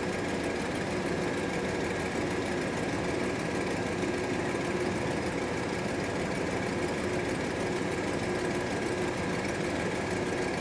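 1977 GMC Motorhome's Oldsmobile V8 idling steadily with the dash air-conditioning compressor engaged, running while the AC system draws in refrigerant during a recharge.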